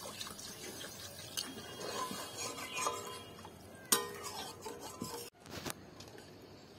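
Flat metal spatula stirring and scraping a thin tomato-masala gravy in a metal wok, with a few clinks against the pan. The loudest clink, about four seconds in, rings briefly.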